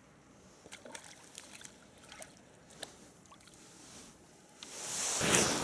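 A small hooked fish splashing at the water surface on a float-rod line, with scattered light splashes and clicks, then a louder stretch of splashing near the end as it is pulled from the water.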